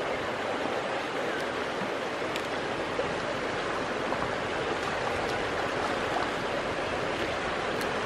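Steady rushing of flowing river water, with a few faint clicks.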